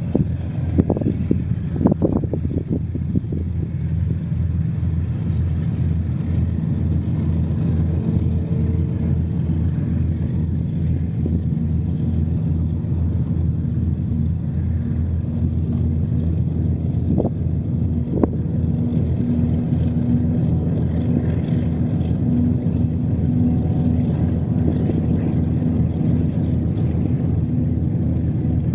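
Diesel freight train passing: the locomotives' engines give a steady low drone, with the rumble of a long string of container wagons rolling along the track.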